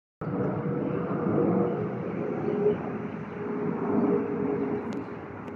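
Airbus A320-232 airliner's IAE V2500 jet engines heard from the ground as it passes overhead on approach: a steady roar with a humming tone that drops slightly in pitch, fading toward the end.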